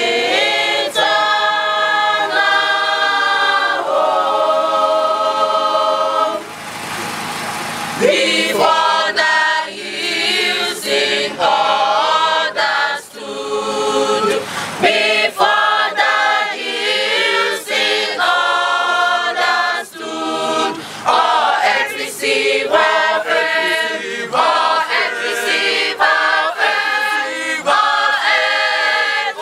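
A mixed choir of men's and women's voices singing, with long held notes. There is a short break in the singing about six seconds in.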